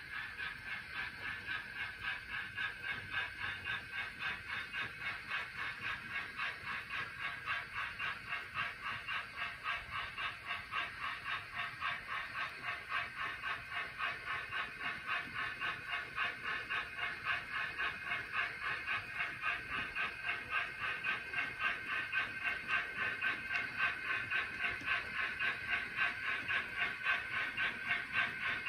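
Chuffing from an HO scale model steam locomotive's sound unit as it moves the work train, an even quick beat that grows slowly louder.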